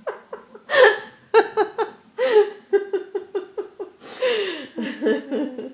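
Laughter, in a run of short pitched bursts.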